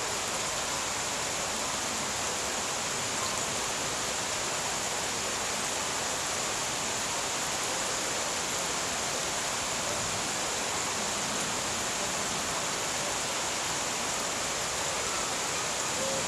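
Steady summer rain pouring down on garden plants, an even, unbroken hiss.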